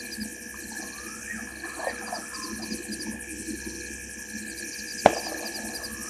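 Night chorus of insects and frogs: rapid high trilling and steady droning calls, with scattered short rising and falling chirps. A single sharp click cuts through about five seconds in.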